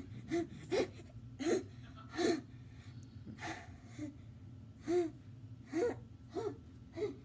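A boy laughing hard in about ten short, uneven bursts, with gasping breaths between them.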